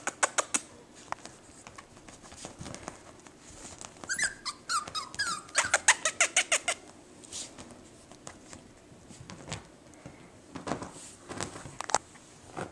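Jack Russell Terrier puppy giving short, high yips and squeaks in several quick bursts, one run of them coming fast at about eight a second.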